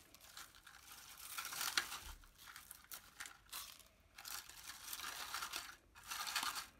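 Shredded paper basket filler rustling and crinkling as it is handled and pressed into a small cardstock basket, in uneven bursts with a sharp crackle a little under two seconds in.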